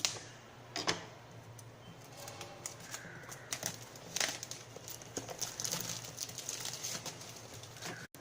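Hands handling and opening the cardboard retail box of an Asus Zenfone Max Pro M2 phone: scattered taps and clicks, with a longer stretch of scraping and rustling between about four and seven seconds in.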